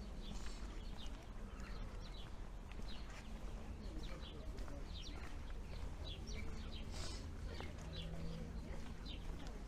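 Small birds chirping again and again in short high notes over a steady low rumble of street ambience.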